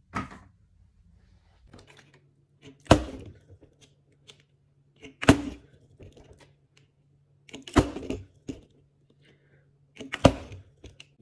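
Five sharp knocks about two and a half seconds apart. The later ones are a plastic water bottle being flipped and landing on a wooden floor.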